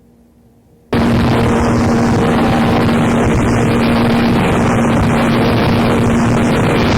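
Harsh noise music from a cassette: after a faint hum, a loud dense wall of static cuts in suddenly about a second in and holds steady, with a constant low drone underneath and a slow whooshing sweep in the top that rises and falls about every second and a half.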